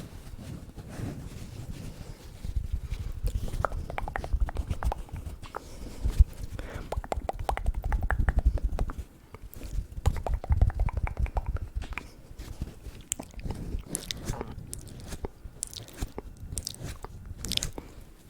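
ASMR mouth sounds made close to a bare microphone: wet clicks, smacks and crunch-like mouth noises in irregular flurries, with low thumps from the mouth's closeness to the mic.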